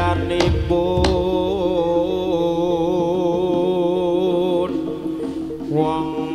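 Javanese gamelan music accompanying a jaranan dance. A long, wavering melody note is held from about half a second in until nearly five seconds, over steady pitched tones, with a couple of drum strokes near the start.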